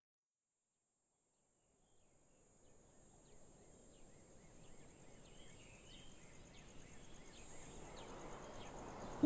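Faint evening field ambience fading in from silence: a steady high-pitched insect drone with scattered bird chirps over a low outdoor hush, growing louder toward the end.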